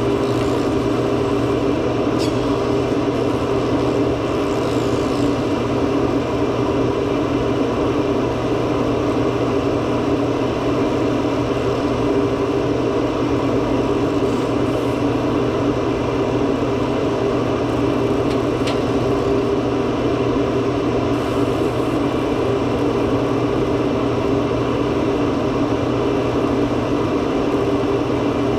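Steady mechanical hum of a running machine, unchanging throughout, with two faint sharp ticks.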